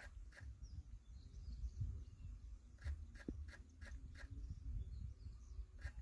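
Faint outdoor ambience: a low wind rumble, with a quick run of about five short sharp ticks about halfway through and single ticks near the start and end.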